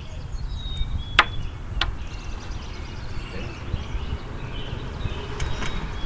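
Wind buffeting the microphone with a steady low rumble, while birds chirp faintly. Two sharp clicks come about a second and two seconds in.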